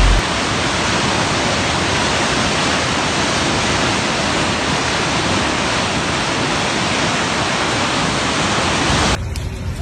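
Muddy floodwater rushing and churning through a swollen stream: a loud, steady rush of water that cuts off suddenly about nine seconds in.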